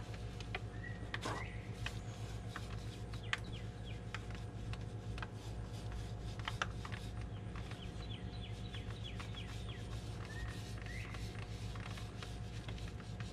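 A brush scratching and dabbing as it works resin into fiberglass mat, with a few sharp taps, over a steady low hum. Birds chirp in the background, with a quick run of short falling chirps in the middle.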